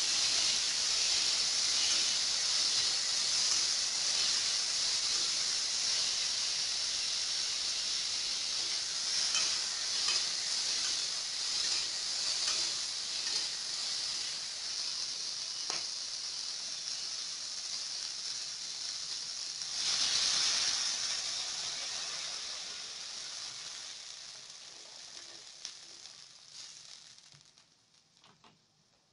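Ripe jujubes simmering in water in an aluminium wok, a steady sizzling hiss that fades away over the last several seconds. A few light clicks near the end.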